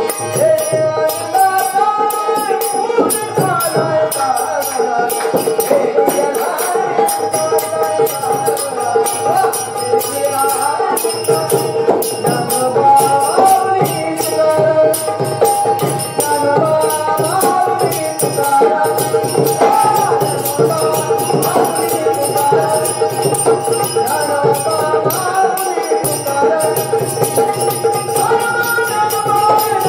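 Gavlan, Marathi devotional folk music: a held drone and a wandering melody line over fast, steady jingling percussion.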